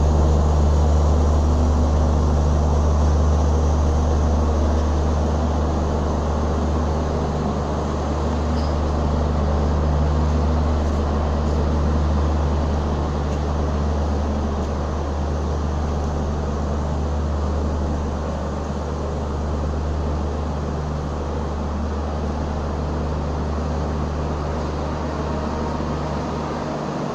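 Indian Railways LHB air-conditioned passenger coaches rolling slowly past: a steady low hum over a constant rumble, slowly getting quieter.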